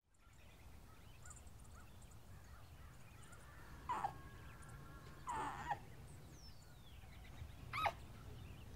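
A few short, faint sound effects over a low steady hum. There is a sharp sound about four seconds in, followed by a held two-pitch tone. Another short burst comes about a second later, then a thin falling whistle, and a last short pitched sound near the end.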